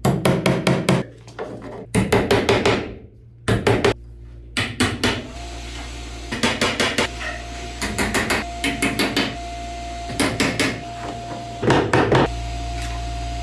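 Hammer driving nails into wood framing in quick runs of four to six blows with short pauses between runs: nailing electrical boxes to the wall studs.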